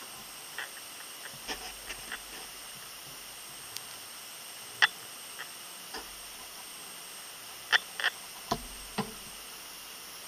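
Scattered small, sharp clicks and taps from a watch hand-remover tool and fingers working close over a watch dial while the hands are levered off, over a steady hiss. The sharpest click comes just under five seconds in, and a run of four louder clicks follows near the end.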